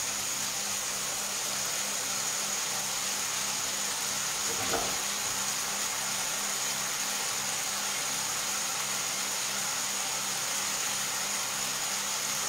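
Fish fillets and artichokes frying in two pans on a gas stove: a steady sizzle over a low steady hum. A single brief knock comes about five seconds in.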